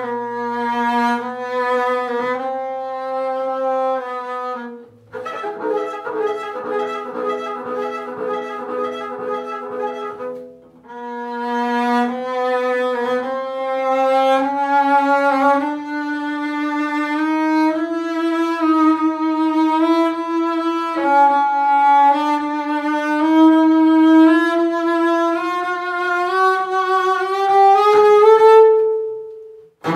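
Solo double bass played with the bow, high on the instrument: long held notes, a stretch with two notes sounding together about five to ten seconds in, then a slow climbing line that ends on a long high note.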